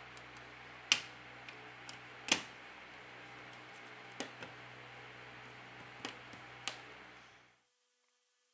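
Sharp clicks and taps as a Samsung Galaxy Mega Plus's middle frame is set onto the handset and pressed into place: six of them, spread unevenly, the second the loudest, over a steady faint hiss that cuts off near the end.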